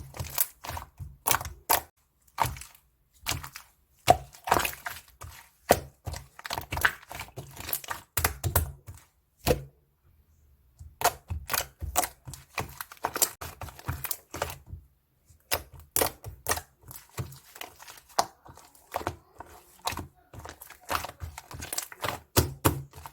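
Slime being squished and pressed by hand, giving rapid, irregular sticky clicks and pops, with a brief pause about ten seconds in.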